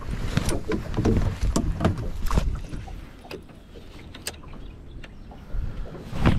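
Fishing tackle handled in a small boat: a run of small clicks and knocks for the first couple of seconds, then quieter with a single click, over a steady low rumble.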